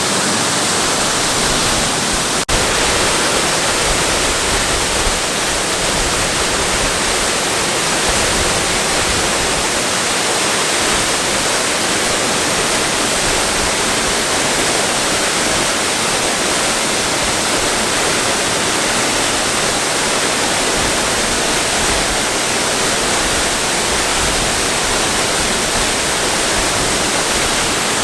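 Waterfall: falling water rushing in a steady, even hiss, with one very brief break about two and a half seconds in.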